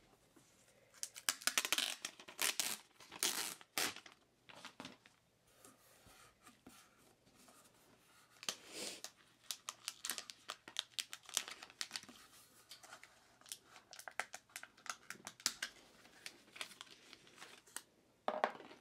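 Thin clear plastic wrap on an Apple USB SuperDrive crinkling and tearing as it is handled and pulled off. The crackles are irregular, heaviest in the first four seconds and again around nine to twelve seconds in.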